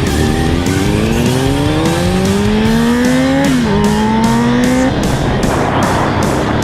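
Motorcycle engine accelerating hard, rising in pitch, dropping briefly at an upshift about three and a half seconds in, then climbing again until it cuts off about five seconds in. Rock music with a steady beat plays alongside.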